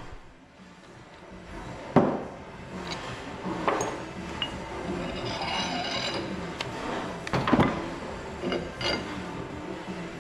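Heavy steel parts of a bush-pulling rig, a hollow-ram hydraulic jack and a threaded pulling bar, knocking and clinking as they are handled and re-fitted: a few sharp metal knocks, the loudest about two seconds in and again at about seven and a half seconds.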